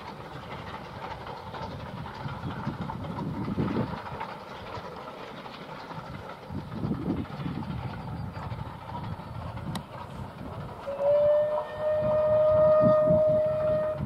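Steam locomotive hauling a passenger train, its exhaust beats coming and going, then one long steady blast on its whistle starting about eleven seconds in and lasting about three seconds.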